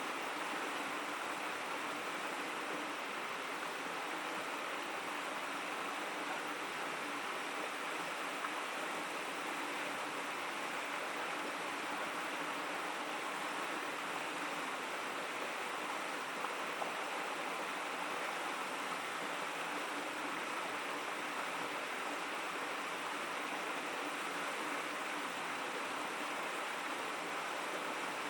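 Shallow river water babbling and murmuring steadily over stones.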